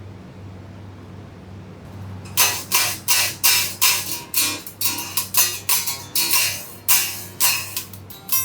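Guitar strummed in a run of short chords, about two or three a second, starting a little over two seconds in after a low steady hum.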